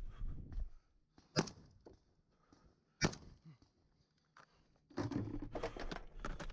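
Two single gunshots about a second and a half apart, sharp and clipped on the camera microphone. From about five seconds in comes a denser stretch of rattling and handling noise.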